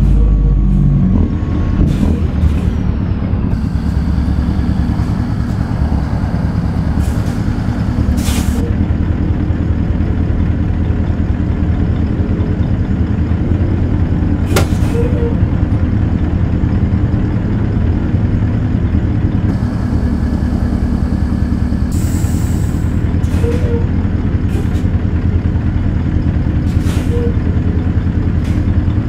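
Semi truck's Caterpillar 3408 V8 diesel engine running steadily. A few sharp clicks and a short hiss of air come about three-quarters of the way through.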